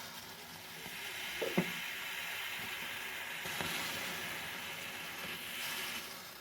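Sinbo electric egg boiler hissing and sizzling steadily as the last of its water steams off the hot heating plate, the reservoir boiling dry at the end of the cook. A small knock about one and a half seconds in.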